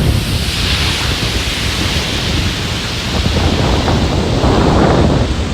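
Ocean surf breaking and washing up the beach, with strong wind buffeting the microphone in a low rumble. A wave swells and washes in near the end.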